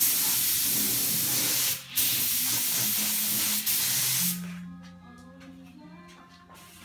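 Iwata LPH50 mini spray gun spraying paint: a steady hiss of air and atomised paint, broken briefly near two seconds, that stops a little after four seconds.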